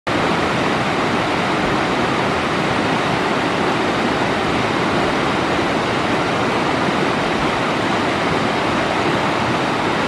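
Fast mountain stream rushing over rocks: a steady, unbroken rush of white water.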